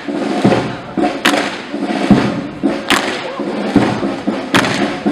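Marching steps of a column of Evzones in hobnailed tsarouchia, the whole column striking the pavement together. A sharp clack comes about every second and a half, with duller thuds in between.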